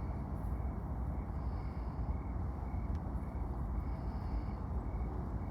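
A steady low rumble, with faint short high chirps repeating about twice a second.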